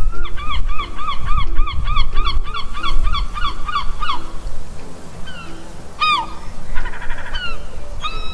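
Gull calling: a fast run of about a dozen laughing yelps, roughly three a second, then a few separate calls, one of them loud and falling, with a faint quick chatter near the end.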